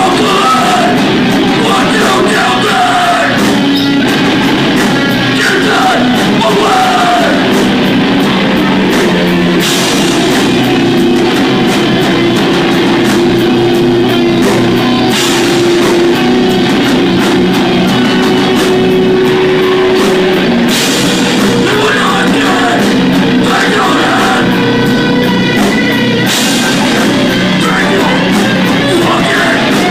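Live heavy rock band playing loud: distorted electric guitars and bass over a Tama drum kit, with a vocalist singing over it and cymbal crashes every few seconds.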